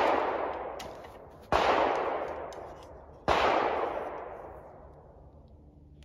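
Three gunshots about a second and a half to two seconds apart, each a sharp report followed by a long echo that fades over a couple of seconds.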